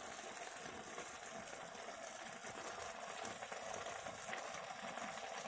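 A pot of noodle soup simmering on a gas stove: a faint, steady bubbling hiss with fine crackle.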